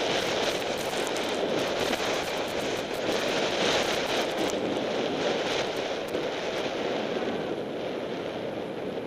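Riding noise from a cyclocross bike's on-board camera: dense crackling rattle and rumble over bumpy grass, easing into a smoother, steadier rush once the tyres reach pavement about four and a half seconds in.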